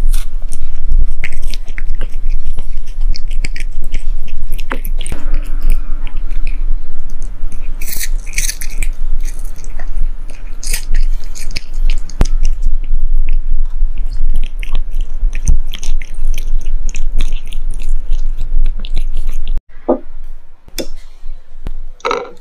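A cat chewing and crunching food close to the microphone: a dense, loud run of crunchy chewing clicks. About three seconds before the end the sound drops to quieter, sparser clicks.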